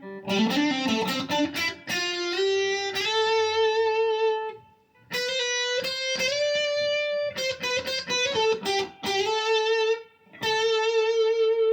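Electric guitar with a Lollar High Wind Imperial bridge humbucker, played through a Blackstar ID:Core 40 V2 amp on its crunch channel with light reverb. It plays single-note lead lines with held notes and vibrato, stopping briefly about five and ten seconds in.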